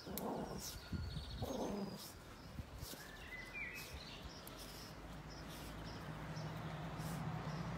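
Faint birdsong: small birds chirping now and then over a quiet outdoor background, with two brief rustles in the first two seconds.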